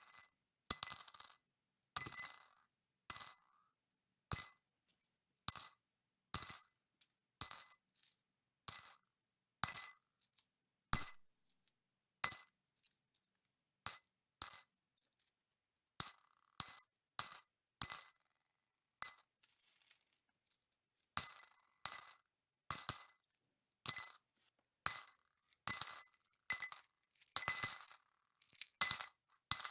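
Coins dropped into a bowl, each landing with a bright metallic clink and a short ring. The drops come about one a second, with a couple of longer pauses and quicker, closer drops near the end.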